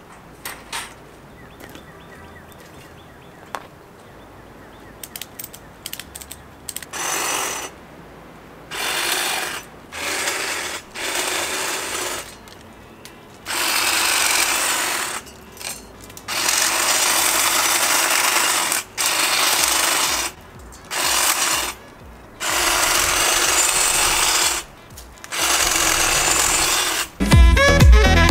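Black & Decker electric trimmer cutting branches, running in repeated bursts of one to three seconds with short pauses between them, starting about seven seconds in.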